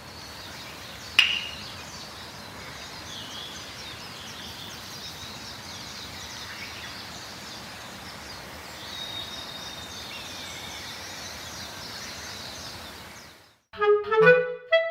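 Steady outdoor hiss with small birds chirping faintly, and a single sharp loud sound about a second in. Near the end the ambience cuts off and a clarinet melody begins.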